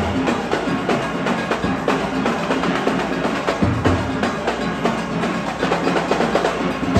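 Large steel orchestra playing a soca arrangement: massed steel pans striking fast runs of notes over a driving drum and percussion beat, with bass pans sounding in repeated low notes.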